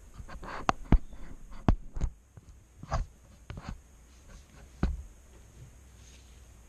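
Trading cards and booster packs being handled: a scattered series of sharp clicks and taps with brief rustles during the first five seconds, then only a faint low hum.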